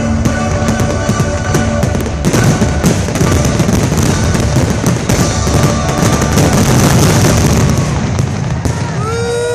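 A fireworks finale barrage: aerial shells bursting many times in quick succession over a loud show soundtrack of music. Near the end the bursts give way to crowd whoops and cheers.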